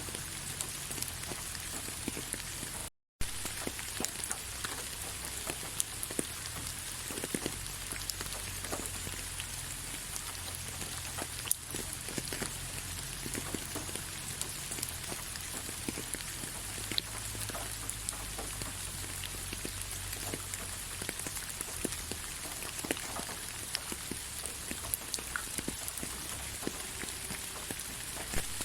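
Steady rain, a continuous hiss with many individual drops tapping on a surface. The sound cuts out completely for a split second about three seconds in.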